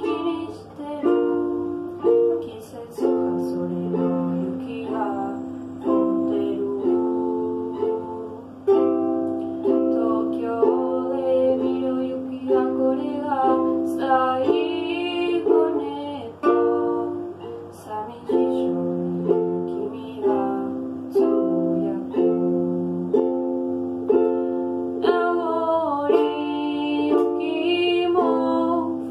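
Ukulele strummed in steady chords, with a young woman singing a slow ballad in Japanese over it.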